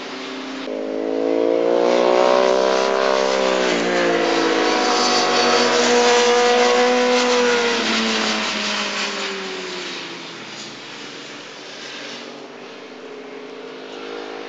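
Sportbike engines at high revs on a racetrack. One bike's note climbs sharply, breaks briefly about four seconds in, holds high, then falls away between about eight and ten seconds in. Quieter engine noise continues after that.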